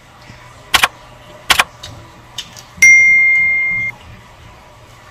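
Subscribe-button animation sound effect: two sharp clicks less than a second apart, then a single bright bell ding that rings for about a second and fades out.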